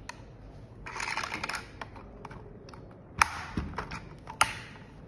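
Hard plastic parts being handled: a rustling scrape about a second in, then a series of sharp clicks and light taps.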